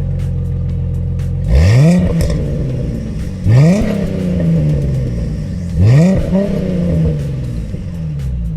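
Ford Mustang GT V8 idling through a Flowmaster Force II cat-back exhaust, blipped three times: each rev climbs quickly and drops back slowly to a steady idle.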